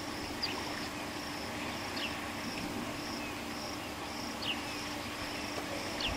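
Insects chirping in a steady pulsing rhythm, about two to three pulses a second, with a bird's short falling whistle heard four times.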